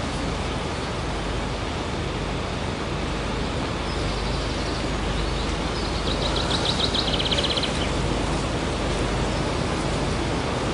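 Steady outdoor background noise, an even hiss, with a short burst of rapid high-pitched chirps about six seconds in.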